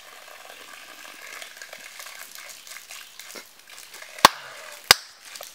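Steady crackling hiss of outdoor background noise, then two sharp cracks about two-thirds of a second apart a little after four seconds in.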